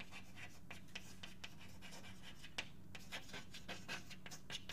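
Handwriting: a run of short, irregular scratching strokes as a formula is written out, over a faint steady electrical hum.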